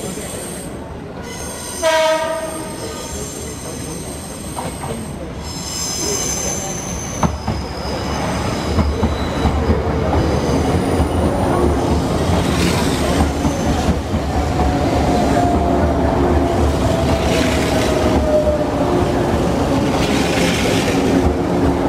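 Izu Kyuko resort train, an electric train, sounds a short horn blast about two seconds in. It then comes into the station with high squeals from the wheels or brakes and a growing rumble of wheels on rails. A whine falls slowly in pitch as the train slows past the platform.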